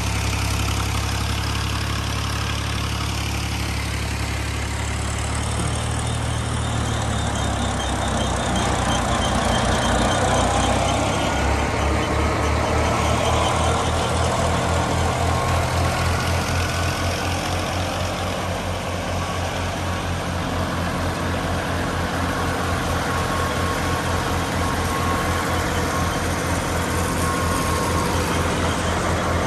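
Fiat 480 tractor's diesel engine running steadily while driving a wheat thresher, with a regular low pulsing that sets in about a third of the way through.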